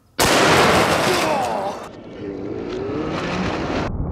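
Slowed-down sound of a .500 Nitro Express elephant rifle shot striking bulletproof glass. A sudden loud boom comes a fraction of a second in and dies away over about two seconds, with wavering lower tones after it. A deep, steady rumble follows from about four seconds in.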